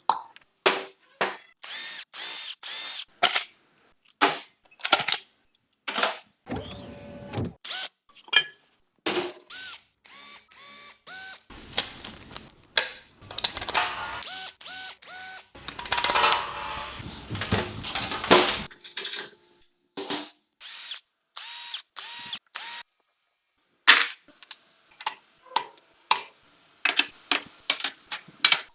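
Tool sounds from an engine teardown in a quick run of short cuts: bursts of a power tool or impact driver and ratchet clicking, with metal parts clinking and ringing in between.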